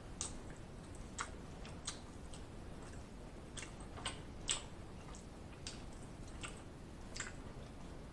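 Close-miked eating of chicken wings: wet lip smacks and mouth clicks as meat is sucked and picked off the bone. They come as scattered, irregular short clicks, about ten of them, the strongest about halfway through.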